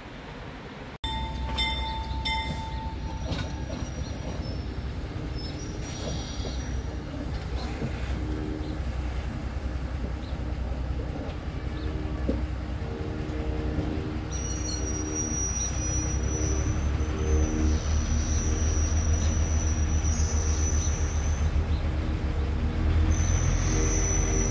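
Diesel switcher locomotive engine rumbling as it pulls passenger coaches slowly along, growing gradually louder as it approaches. From about halfway through, a thin high squeal of wheels on the rails comes and goes over it.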